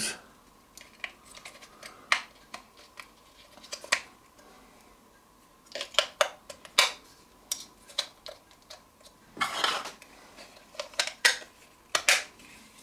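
Batteries being pushed into the plastic battery compartment of a small wireless weather sensor: scattered light clicks and taps of metal and plastic, with a short scrape and a few clicks near the end as the battery cover is fitted back on.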